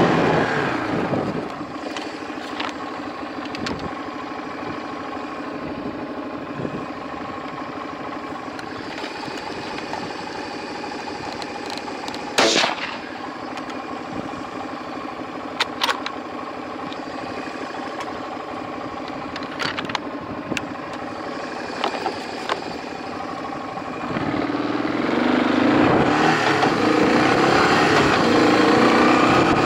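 Off-road vehicle engine running steadily as it drives across a paddock, louder at the start and again near the end as it picks up speed. A single sharp crack about twelve seconds in, and a few lighter knocks after it.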